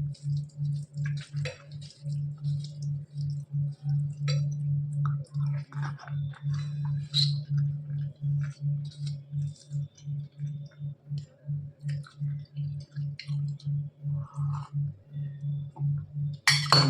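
Small clinks and clicks of dishes and a plate as food is eaten by hand, with a louder clink near the end, over a steady low hum that pulses about three times a second.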